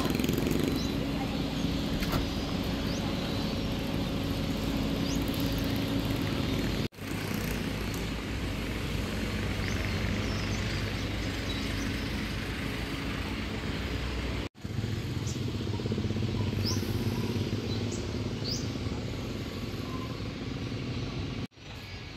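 Outdoor street ambience: a steady wash of traffic and crowd noise, with a few short high chirps about two-thirds of the way in. It cuts off abruptly three times and resumes at once.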